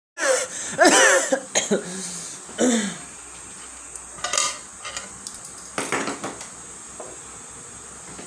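A man's short wordless vocal sounds, a few in the first three seconds. Then light knocks and scrapes of a plastic cup being handled on a tabletop, about four seconds in and again near six seconds.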